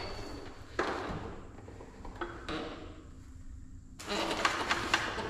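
Metal clunks and scraping from a hydraulic pump being worked loose from a truck's PTO. There is a knock about a second in and another midway, then a run of rapid clattering and scraping near the end.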